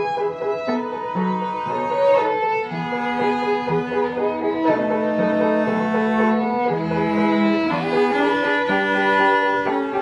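Classical chamber music: a violin carrying the melody over lower, held cello notes, with notes changing about every second.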